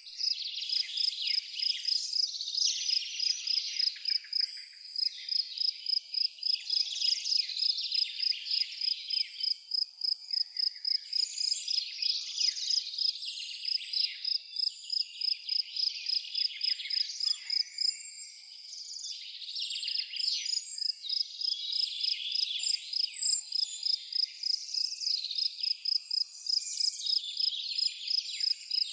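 A steady, high-pitched insect chirp pulsing several times a second throughout, with many birds chirping and singing over it; the birds thin out briefly about two-thirds of the way through.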